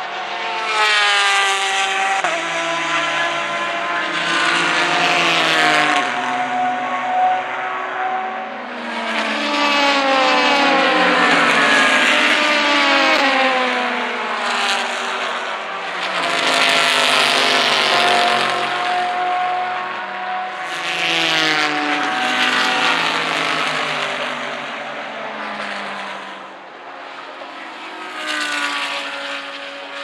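A string of race cars passing one after another at full throttle, about six loud passes. Each engine climbs in pitch and drops back at every upshift as the cars accelerate through the gears. One of the loudest passes, about halfway through, is a Corvette C7.R GTLM car.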